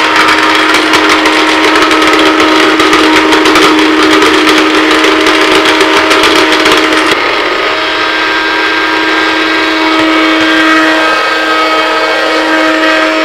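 A 500-watt electric mixer grinder running at full speed with a steady high whine, grinding hard dried ginger. For the first seven seconds or so, pieces of ginger rattle against the blades and jar; then the rattle stops and only the smooth motor whine remains, the ginger now ground to powder.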